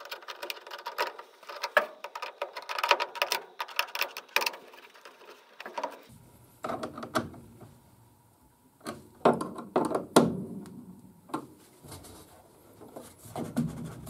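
Rapid clicking of a worm-drive hose clamp being tightened on the rubber vent coupling of a furnace draft inducer, lasting about four seconds, followed by scattered knocks and rustling as the wires and motor housing are handled.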